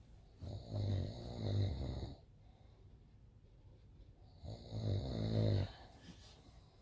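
A man snoring loudly, two long snores about four seconds apart, each lasting about a second and a half.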